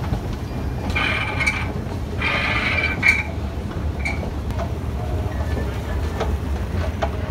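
Escalator running: a steady low mechanical rumble, with two short higher-pitched rattles about a second and two and a half seconds in.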